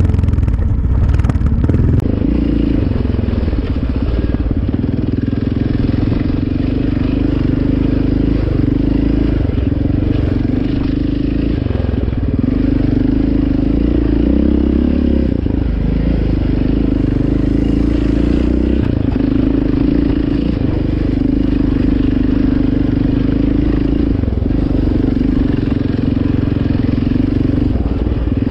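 Yamaha Raptor 700R ATV's single-cylinder engine running hard under throttle, its pitch holding steady and dipping briefly every couple of seconds as the throttle is eased and opened again.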